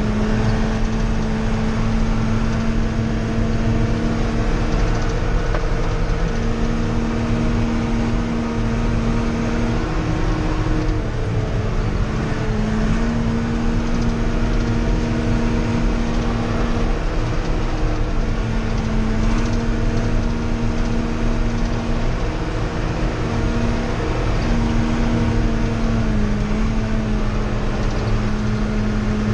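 John Deere tractor's diesel engine running steadily while driving, heard from inside the closed cab: a loud, even drone whose pitch shifts slightly up and down a few times as the engine speed changes.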